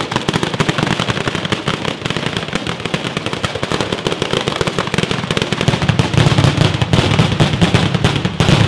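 A ground-level firecracker battery going off: a continuous, dense barrage of rapid bangs with no pauses, growing louder about six seconds in.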